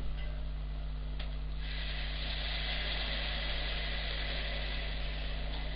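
Broth being poured into a hot pan of meat browned in butter, starting a steady sizzle about a second and a half in.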